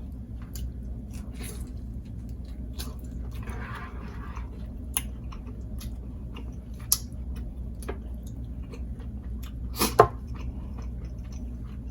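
Close-up mouth sounds of a person chewing chapati and egusi soup: soft wet clicks and smacks scattered throughout, with a sharper smack about ten seconds in.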